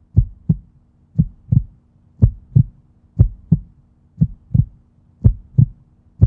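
Heartbeat sound effect: pairs of low thumps, lub-dub, about one pair a second, over a faint steady hum.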